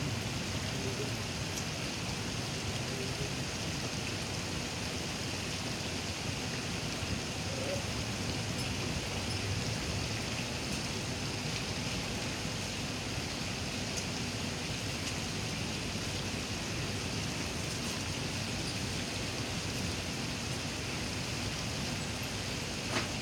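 Steady rushing and splashing of water from pond aerators churning the surface.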